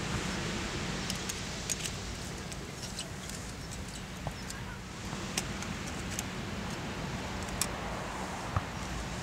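Scattered light clicks and clinks of thin titanium panels as a folding VARGO Hexagon titanium wood stove is handled and unfolded, over a steady low outdoor rumble and hiss.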